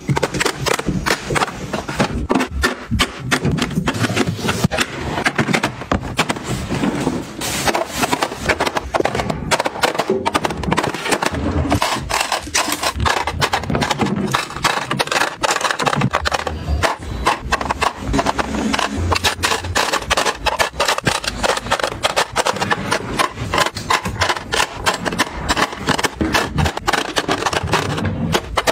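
Plastic and acrylic makeup items clicking and clattering as they are set into clear acrylic organizer compartments and plastic drawer trays: a dense, unbroken run of sharp taps.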